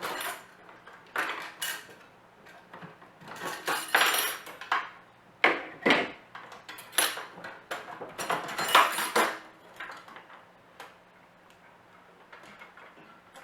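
Metal and plastic clattering, clicking and knocking as parts are pulled out of a desktop PC, a string of sharp knocks that thins out after about nine seconds. A faint steady hum runs underneath.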